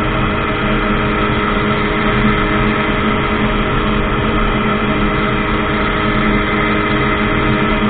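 Ultralight aircraft's engine and propeller running steadily at constant power, an even pitch that holds without change.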